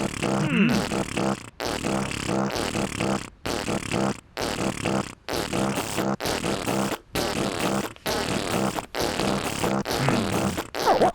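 Cartoon beatboxing: rhythmic vocal percussion with a steady beat, broken by short gaps about once a second.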